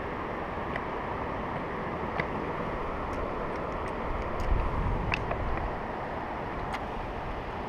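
Steady wind noise on the microphone, with a low gust about four and a half seconds in and a few faint handling clicks from the fish grip and scale.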